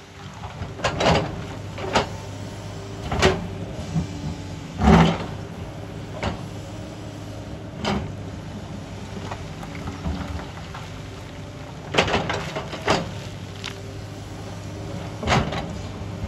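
Sany tracked excavator's diesel engine running steadily while its steel bucket scrapes and knocks through loose broken rock. A string of sharp clattering knocks of stone comes at uneven intervals, the loudest about five seconds in.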